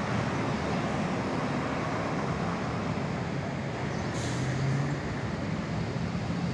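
Road traffic dominated by a large bus engine running close by, low and steady. About four seconds in there is a short hiss of air from the bus's air brakes.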